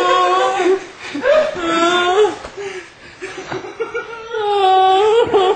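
A grown man wailing like a crying baby, in long high-pitched drawn-out sobs. A loud held wail comes at the start and another about four seconds in, with broken whimpering between them.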